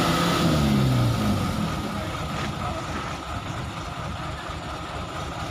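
Truck engine with its revs falling away in the first second or so, then running on at a low, steady idle.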